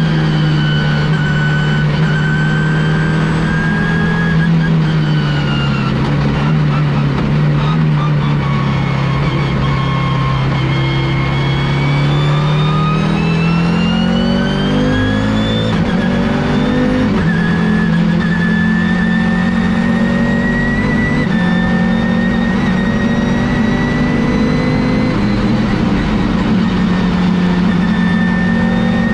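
Audi S2-R race car's turbocharged five-cylinder engine running at race pace, its note sinking slowly for about ten seconds, then climbing again and holding with small steps in pitch, a high whine riding over it.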